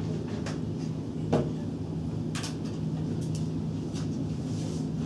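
Steady low hum of classroom room noise with a few scattered clicks and knocks, the loudest a single knock about a second in.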